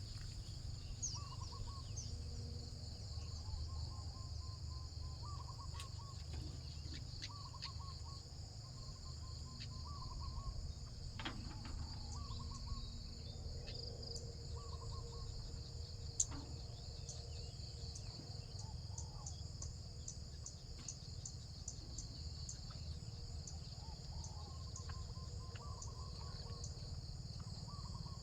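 Insects trill steadily in a high continuous chorus while a bird gives short calls over and over, with a steady low rumble underneath. A single sharp click sounds about halfway through.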